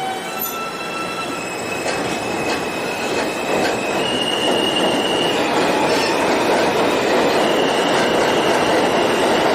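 Subway train running on the rails: a rumbling rush that grows steadily louder, with steady high-pitched squealing whines that jump between pitches.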